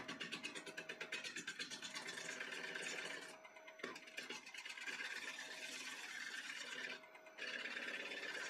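Bowl gouge cutting the outside of a spinning spalted maple bowl on a wood lathe: a steady, fast rhythmic cutting noise that breaks off briefly about three and a half seconds in and again about seven seconds in, as the tool comes off the wood.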